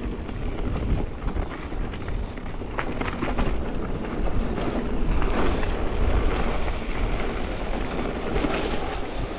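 Mountain bike being ridden down a rocky dirt trail: tyres rolling and crunching over the ground, with frequent clicks and rattles from the bike, under heavy wind rumble on the action camera's microphone.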